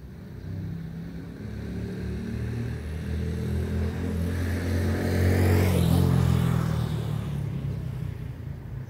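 A motor vehicle driving past: its engine grows louder to a peak about six seconds in, then fades as it moves away.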